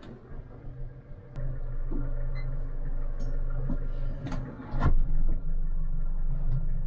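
Boat's outboard engine heard from inside the pilothouse cabin, its low steady hum rising about a second and a half in as the throttle is pushed forward. A couple of louder knocks sound around four to five seconds in.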